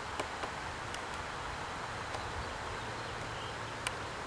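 Steady, faint outdoor background hiss with a few small ticks.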